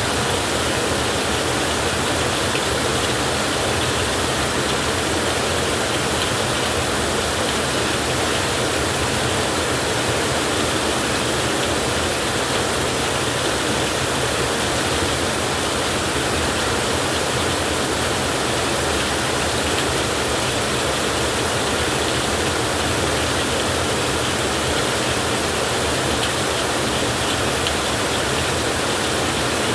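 Heavy rain falling steadily, an even, unbroken hiss with no thunder.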